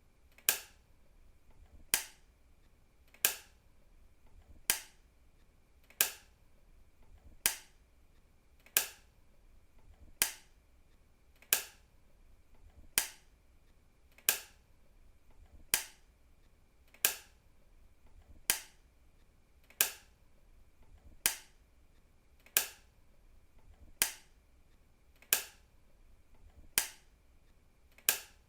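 A switch being clicked on and off repeatedly, one sharp click about every second and a half.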